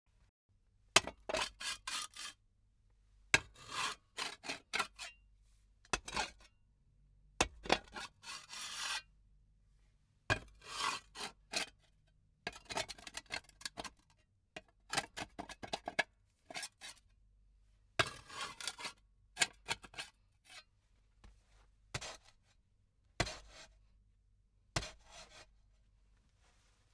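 A fawda, the heavy Indian digging hoe, struck into the ground again and again, each blow followed by a brief scrape and drag of the blade, about a dozen strokes at uneven intervals.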